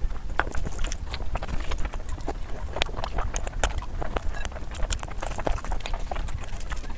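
Close-miked chewing and wet mouth smacking while eating chicken biryani and curry, a quick, irregular run of sticky clicks.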